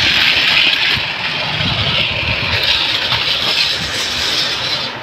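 Battery-powered toy army tank running across a concrete floor: its small electric motor and plastic gears whir steadily, and the sound stops near the end.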